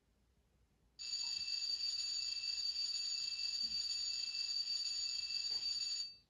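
HO-scale GP30's Soundtraxx TSU-1100 sound decoder playing a steady, high-pitched sound through its small iPhone 6s speaker. It starts about a second in and cuts off suddenly about five seconds later.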